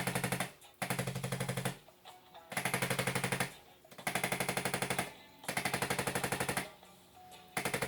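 Handheld electric percussion gun tapping rapidly on the spine in bursts of about a second, roughly a dozen taps a second, with short pauses between bursts and a low motor hum under the taps. It is being used to loosen the muscles and free up a stuck vertebra.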